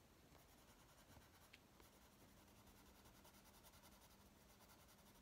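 Faint scratching of a Prismacolor coloured pencil shading on the paper of a colouring book, in quick short strokes.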